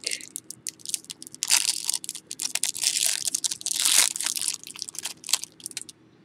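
Wrapper of a pack of football trading cards being torn open and crumpled by hand: irregular crackling and crinkling with a few louder rips, stopping shortly before the end.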